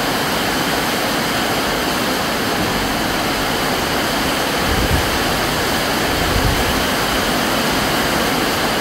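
Heavy rain pouring down as a loud, steady hiss. A couple of dull low thumps come about halfway through.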